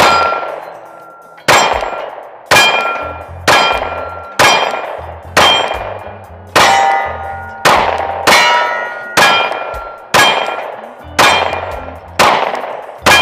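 Glock 43X 9mm pistol fired at a steady pace of about one shot a second, fourteen shots, each followed by the ring of a struck steel target fading out. The pistol cycles through the PSA Dagger Micro magazine with no feeding stoppage.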